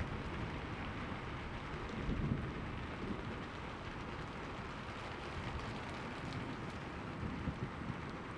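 Steady rainfall, with a low rumble of distant thunder swelling briefly about two seconds in.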